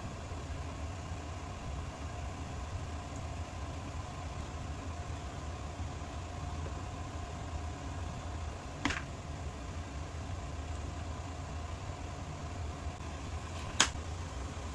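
Steady low hum of a running fan, with two short clinks of kitchenware: one about nine seconds in and a louder one near the end.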